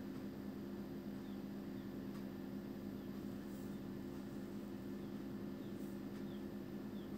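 Faint steady low electrical hum of background room tone, with a few faint, short, high chirps scattered through it.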